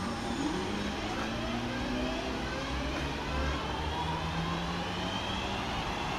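Class 323 electric multiple unit running slowly into a platform. Its traction equipment gives a whine of several tones that slowly rise in pitch, over a steady low hum.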